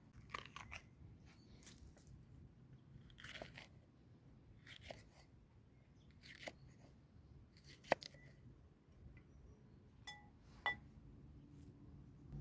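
Soft, scattered crunches and rustles of someone eating, with a few sharp clicks, the loudest about eight seconds in.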